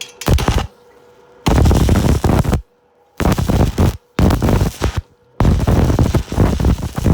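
Electric arc welding on the steel shell of an old water-heater tank, the arc crackling loudly in five separate runs that start and stop, the last lasting about three seconds, as holes in the tank are welded shut to make it airtight.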